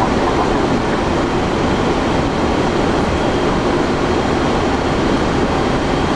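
Steady rushing noise of airflow and engines heard inside an Airbus A330 cockpit on final approach.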